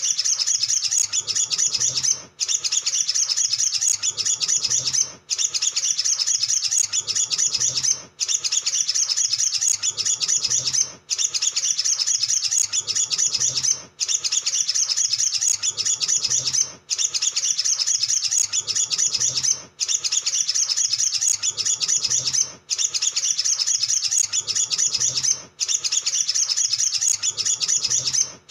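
Male olive-backed sunbird singing a rapid, high, continuous chittering trill. The same few seconds of song repeat in a loop, with a short break about every three seconds.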